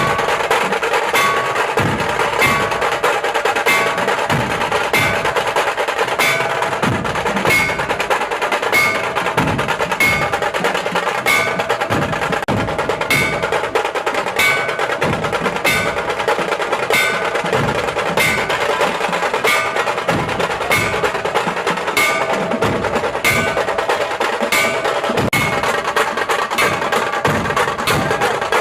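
Background music with a steady percussion beat and bell-like strikes.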